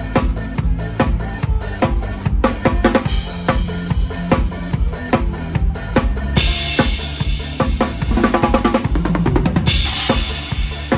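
Live drum kit with the band, playing a steady driving mor lam beat over a bass line. Cymbals wash in about six seconds in, and a rapid drum fill runs just before the cymbals stop.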